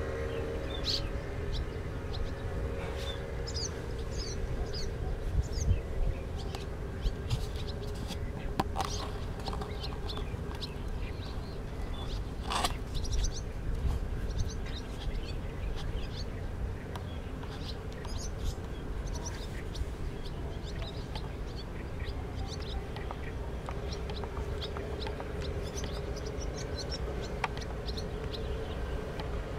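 Swallows calling as a flock flies over, many short high chirps scattered throughout. Underneath is a low rumble and a steady hum that fades a couple of seconds in and returns near the end.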